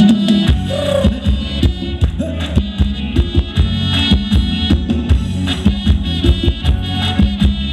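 Thai ramwong dance music played loud by a live band over a PA, with a steady drum beat.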